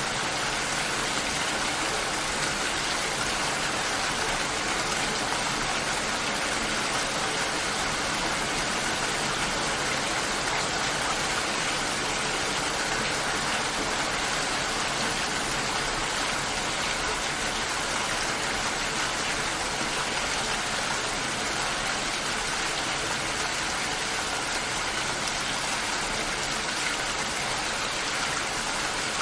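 Steady rainfall, an even hiss that holds at one level without a break.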